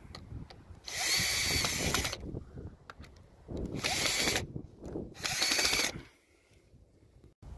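Drill driver driving screws through a plastic junction box into wall plugs in brickwork: the motor whirs in three short runs of about a second each, with brief pauses between.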